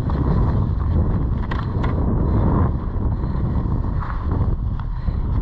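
Wind buffeting the microphone in a steady low rumble, with a few soft crunches of boots stepping in snow.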